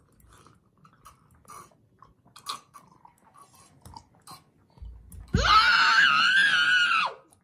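Children sipping and slurping water from drinking glasses without using their hands, faint small mouth and glass sounds. About five seconds in, a child's high-pitched squeal is held for nearly two seconds, the loudest sound here.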